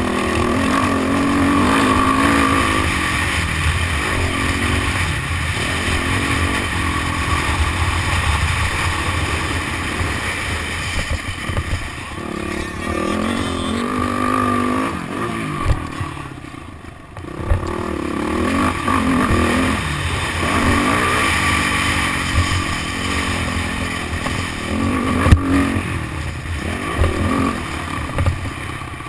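Motocross dirt bike engine revving up and down as the rider works the throttle and gears around the track, heard from a bike- or helmet-mounted GoPro HD 2 with wind on the microphone. Over halfway through, the engine drops off briefly and then picks up again, and a few sharp knocks come through.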